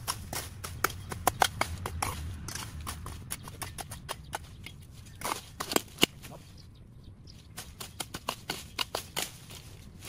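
A run of irregular sharp knocks and clicks, several a second at times, with a pause of about a second two-thirds of the way through before another run.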